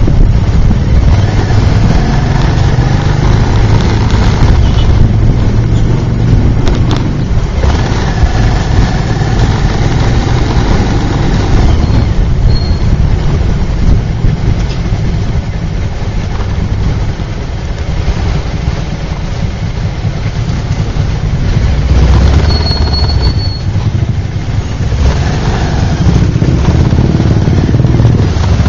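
Motorbike engine running at low speed in slow, congested traffic, its note rising and falling with the throttle over a heavy low rumble.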